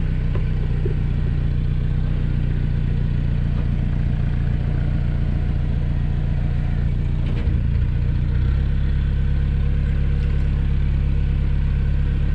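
Narrowboat's inboard diesel engine running steadily under way, a low continuous drone; its note shifts about eight seconds in.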